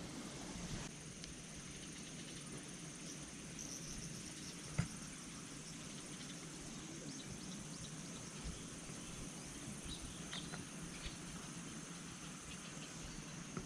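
Outdoor ambience: a steady high-pitched insect drone, with one sharp tap about five seconds in.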